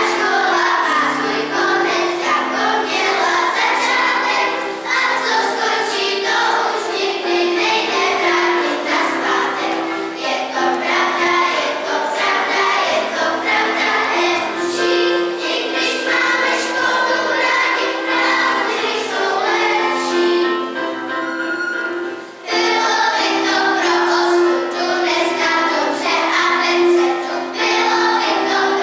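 Children's choir singing. The voices drop out briefly about twenty seconds in, then come back in.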